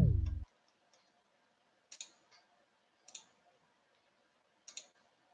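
A short falling electronic tone from a video-call app, sounding as a participant disconnects. It is followed by a few sharp, separate clicks, spaced a second or more apart, as presentation slides are clicked through.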